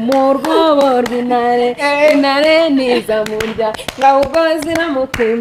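Women's voices singing a chant-like tune in short held notes that step up and down, with hand claps between them.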